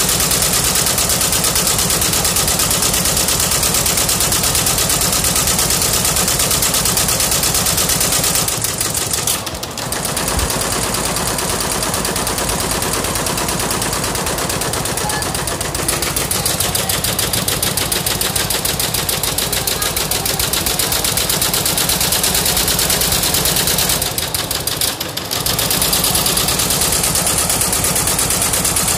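Multi-head computerized embroidery machine stitching at speed: a loud, rapid, steady clatter of the needle heads, easing briefly twice, about a third of the way in and near the end.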